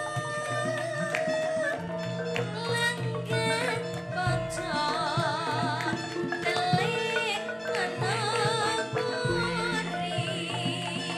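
A sinden (Javanese female vocalist) sings with heavy vibrato into a microphone over gamelan accompaniment. Percussion runs through, and a deep low tone enters about four seconds in and again about nine seconds in.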